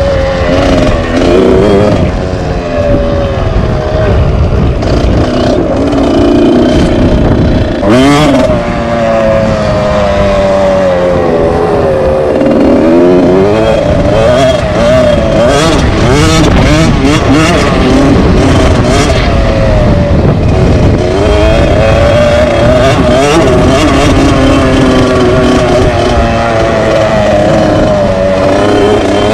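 Close-up KTM dirt bike engine being ridden hard, its revs rising and falling over and over as the throttle opens and shuts through the gears, with a sharp blip of revs about eight seconds in.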